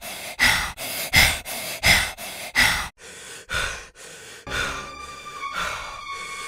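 Horror-style soundtrack: loud, heavy breaths repeating about every 0.7 s, then quieter breathing over an eerie music bed with held steady tones coming in about halfway.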